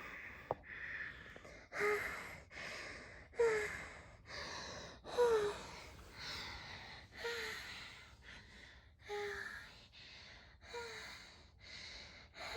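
A person breathing heavily, moaning in a regular cycle about every two seconds: each breath starts with a short pitched gasp and trails into a longer sighing breath.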